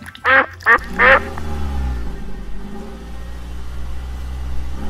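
Ducklings quacking three times in quick succession, then the steady low hum of a toy ride-on truck's electric motor running.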